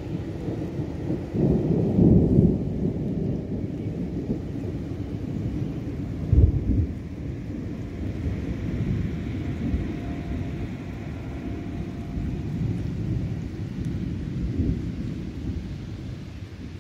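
Thunder from a passing thunderstorm cell, rumbling low and irregular. It swells about two seconds in and peaks in a short, sharp burst about six and a half seconds in.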